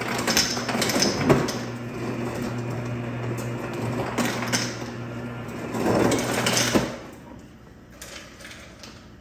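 Refrigerator door dispenser running as a cup is filled: a steady electric hum under an uneven rattling rush. The rush grows louder just before the dispenser stops, about seven seconds in.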